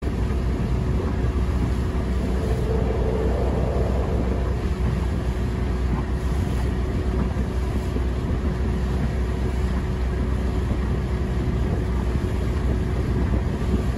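Motorboat running steadily under way: an even engine drone with a low rumble, mixed with wind on the microphone and water noise.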